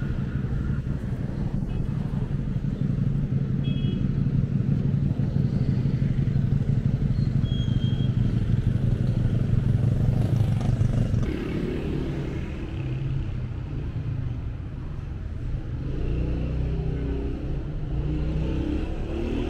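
Street traffic with a motor vehicle's engine running close by, a steady low hum that grows louder and then drops away about eleven seconds in, leaving general traffic noise.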